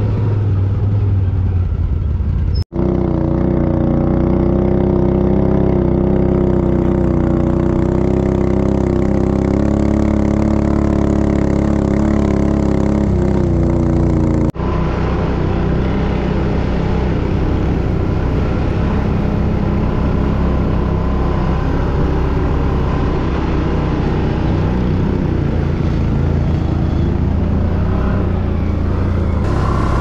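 Quad bike (ATV) engine running under way, its pitch drifting slightly up and down. The sound cuts out for an instant twice, about 3 and 15 seconds in.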